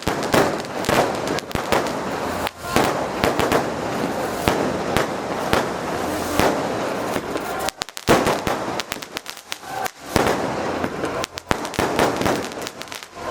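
Fireworks going off in quick succession: many sharp bangs and crackling pops over a dense hiss. They thin out to a few scattered pops a little past the middle, then build up again.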